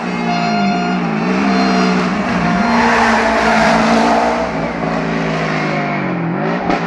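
Subaru Impreza hill-climb race car's engine at full throttle, its revs dropping and climbing again at each of about three gear changes. It grows loudest as the car passes close by, about three to four seconds in.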